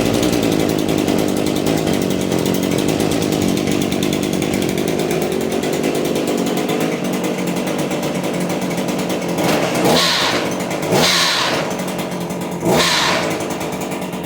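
Echo PPT2620H pole saw's small two-stroke engine running steadily, then revved briefly three times near the end. It makes a wicked noise that seems to come from the cutting head, where the chain is far too tight to spin.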